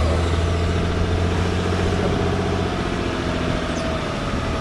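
Mitsubishi Shogun Sport's V6 engine idling steadily, heard from underneath the truck close to its freshly resealed exhaust.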